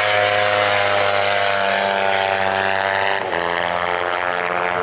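Small-capacity Kawasaki race motorcycles running at high revs through a bend, the engine note sliding slowly down in pitch and then dropping sharply a little over three seconds in.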